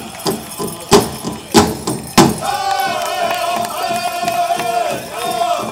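Pow wow drum and singers: a big drum beaten steadily about three times a second, with three loud accented strikes about a second in, then a high, held sung cry over the continuing beat.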